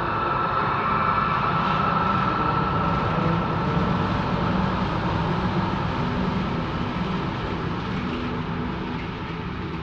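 Dense rumbling drone that builds over the first few seconds and then slowly fades, with a steady high tone over it early on.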